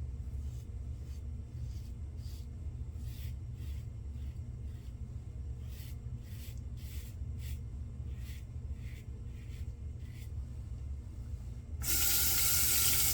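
Razor blade scraping over lathered stubble in a run of short strokes, about two a second, during cleanup shaving. Near the end a tap is turned on and water runs loudly for about a second.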